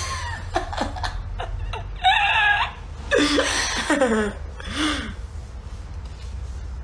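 Women laughing and giggling, with a high-pitched squeal of laughter about two seconds in; the laughter dies away after about five seconds, leaving a steady low hum.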